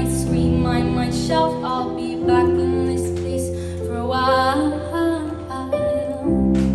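Live band music: a singer's melody over guitar and long held low bass notes.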